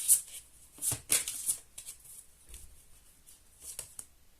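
A tarot deck being shuffled by hand: a run of quick, papery swishes in the first second and a half, then a fainter couple near the end.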